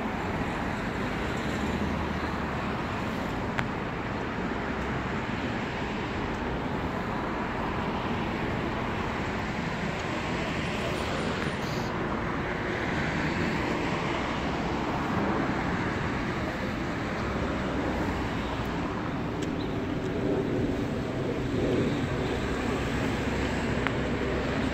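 Road traffic noise: a steady hum of vehicles running and passing. Toward the end a car engine comes in more clearly and grows a little louder.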